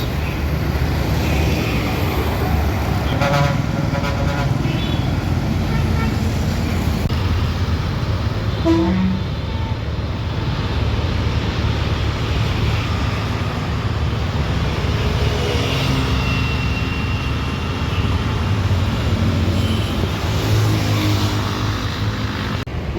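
Road traffic: engines running in a steady rumble, with vehicle horns tooting now and then.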